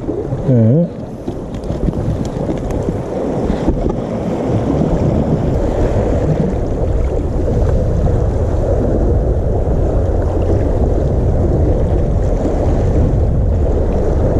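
Sea waves washing over shoreline rocks, with wind rumbling on the microphone. The steady rushing noise grows louder a few seconds in.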